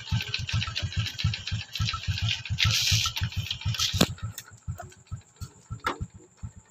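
Single-cylinder four-stroke engine of a Honda XRM 125 motorcycle idling, with rapid even low thumps. A rattly hiss over it for the first four seconds ends in a sharp click.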